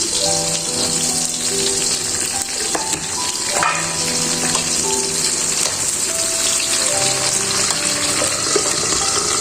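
Food frying in a pan with a steady sizzle, under soft background music of held notes.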